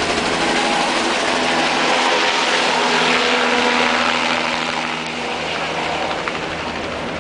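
Helicopter flying low overhead: a steady drone that is loudest a few seconds in, then fades as it flies away.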